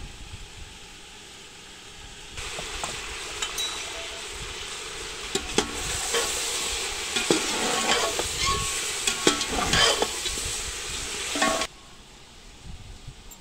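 Chicken pieces and onions sizzling in hot oil in a large aluminium pot, with a slotted metal spoon scraping and clicking against the pot as they are stirred. The frying starts about two seconds in and cuts off abruptly near the end.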